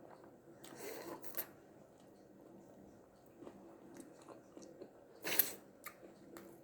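Close-up eating sounds: biting into and chewing crunchy fried chicken wings (KFC Dunked Wings). There are a few soft crunches about a second in and a louder, sharp crunch a little over five seconds in.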